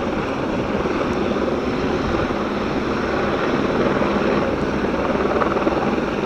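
Several helicopters flying past, a loud, steady rotor and engine drone.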